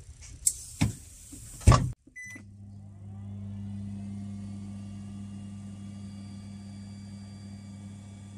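A metal baking tray slid into an electric oven and the door knocked shut, then a short beep from the control panel. After that the oven runs with a steady low electric hum as it starts baking.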